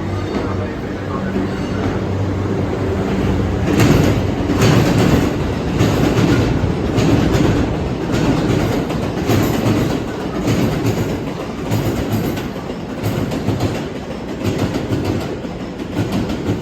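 Train of railcars hauled by an EF81 electric locomotive rolling past. A steady hum gives way, about four seconds in, to a run of wheel clacks over the rail joints.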